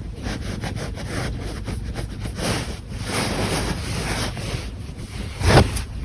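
A sleeping cat snoring high-pitched, in swells of noisy breath that come and go, mixed with handling noise close to the microphone. A short, louder bump comes about five and a half seconds in.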